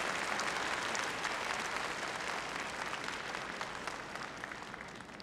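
Auditorium audience applauding, the clapping slowly dying away.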